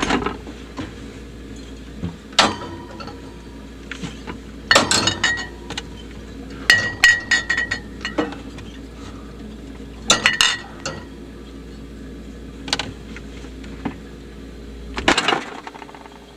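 Glass clinking and knocking in about six short bursts of several strikes each, some strikes ringing briefly, over a steady low hum that cuts off near the end.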